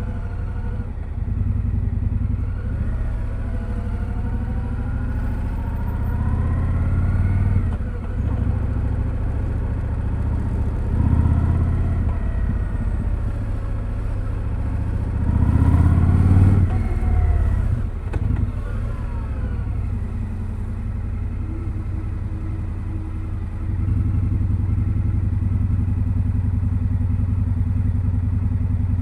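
2025 Indian Scout Sixty Bobber's V-twin engine through its stock exhaust, under way: it pulls up in revs several times, the pitch rising and dropping back at each gear change. In the last few seconds it runs at steady low revs.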